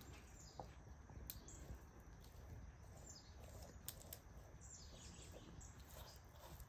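Near silence: faint outdoor ambience with a few faint bird chirps and soft clicks.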